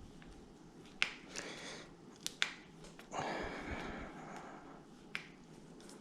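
Scattered sharp clicks and knocks from handling a bicycle's stem and handlebars: one about a second in, a quick pair a little later and one near the end, with a second or so of scraping rustle in the middle.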